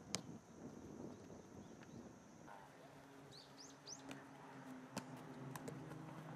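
Quiet open-air ambience with a few short bird chirps about three seconds in, then several sharp taps of a football being kicked and juggled on grass.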